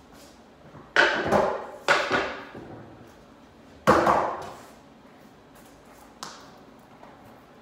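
Skateboard clacking down onto a concrete garage floor during beginner ollie attempts: three loud, sharp clacks in the first four seconds, each ringing briefly in the garage, then a fainter knock about six seconds in.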